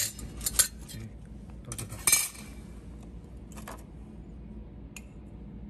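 Thin sheet-steel plates with welded-on threaded stud nuts clinking as they are handled and set down on a workbench. A few sharp metallic clicks, the loudest about two seconds in, with fainter taps later, over a low steady hum.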